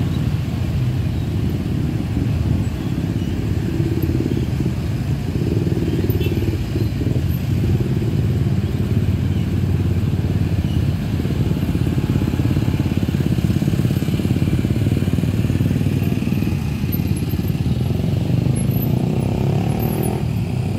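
Dense road traffic, mostly motorcycles with some cars, crossing a railway level crossing: a steady low rumble of many small engines running and pulling away together.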